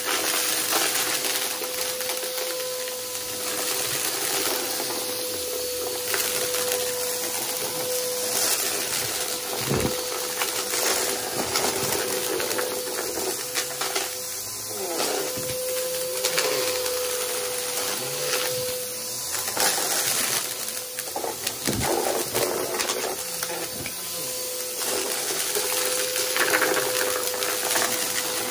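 Aeroswift vacuum cleaner running with a steady motor hum, crackling and rattling as it sucks up a dry crunchy debris mix, with a couple of louder knocks.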